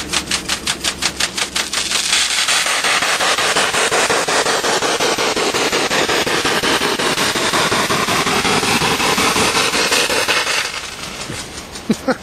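Sprinkler's jet of water spraying onto a tent. It starts as a rapid rattle of about five hits a second, then becomes a loud, steady spray on the fabric for about nine seconds, and falls away near the end.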